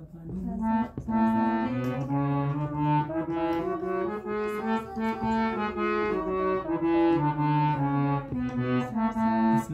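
A keyboard instrument played as a finger-practice exercise: a plain melody of held notes stepping up and down, each lasting about half a second to a second.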